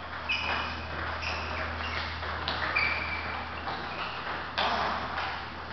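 Table tennis balls clicking off rackets and tables: a handful of sharp, irregular knocks, several with a brief high ring.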